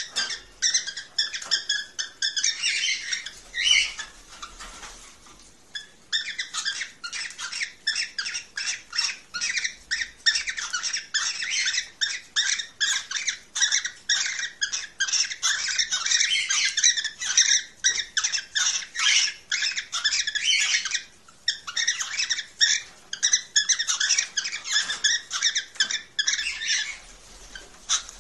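Cockatiels giving mating calls: a fast, dense stream of short, shrill chirps and chatter, with brief lulls about five seconds in and again near the end.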